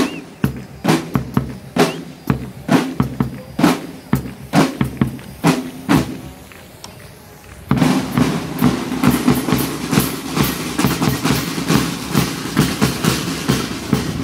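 Marching band side drums playing a rhythmic cadence of sharp strokes. About eight seconds in, the full band's brass, including sousaphone, comes in over faster drumming.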